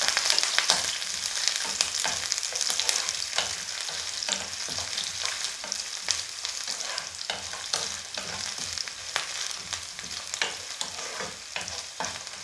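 Chopped shallots and coconut slivers sizzling in hot coconut oil in a non-stick pan, stirred with a wooden spatula that scrapes and taps against the pan. The sizzle slowly eases as it goes.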